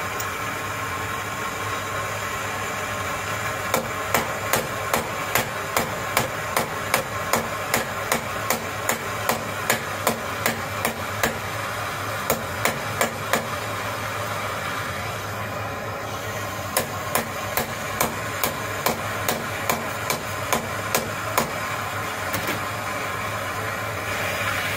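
Hammer tapping a breakdown bar on a turbo socket that grips a broken steel head bolt in an aluminum outboard cylinder head, working it loose while the bar is turned. The sharp taps come about two a second in two runs with a pause between, over the steady hiss of a handheld gas torch heating the head.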